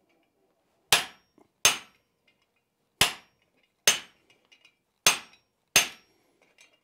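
Hand hammer striking the top of a guillotine tool on the anvil, six sharp metallic blows at an uneven pace, each with a short ring. The tool is fitted with a flat die to flatten and clean up the hot steel.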